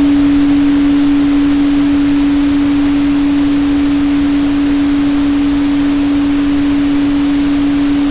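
A steady 285 Hz sine tone held at one pitch over an even pink-noise hiss.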